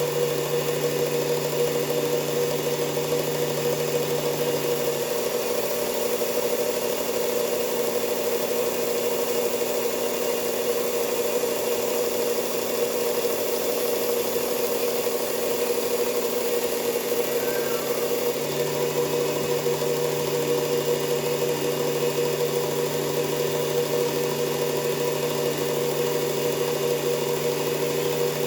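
Work Sharp Ken Onion Edition electric belt knife sharpener running steadily with a fine belt, sharpening a knife edge. One lower part of its hum drops away about five seconds in and comes back about eighteen seconds in.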